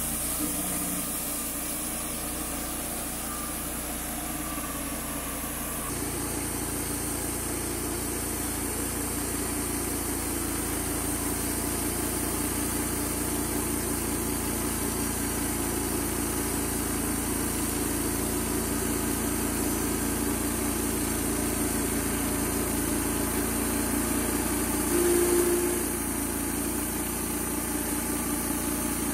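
Wood-Mizer LT35HD band sawmill running: its engine drones steadily while the band blade saws through a red oak log. A brief louder tone rises about 25 seconds in.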